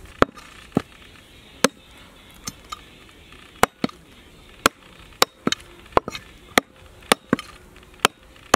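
Heavy meat cleaver chopping mutton ribs on a wooden log chopping block: about fourteen sharp single blows at irregular intervals, sometimes two in quick succession.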